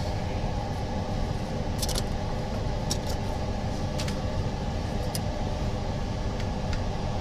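Steady low machine hum, with scattered light clicks and taps of small parts being handled.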